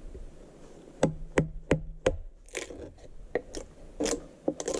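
Wood struck on wood: wooden keys being knocked into the grooves of a heavy log door panel. Four sharp knocks about a third of a second apart starting about a second in, then lighter, irregular knocks.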